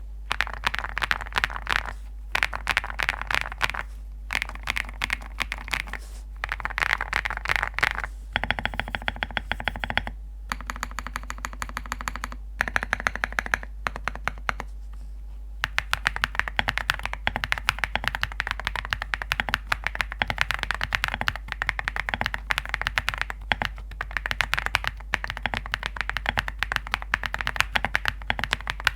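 A foam-filled ZOO65 mechanical keyboard with graphite gold switches being typed on quickly, with a dense run of muted, stone-like key taps broken by a few brief pauses.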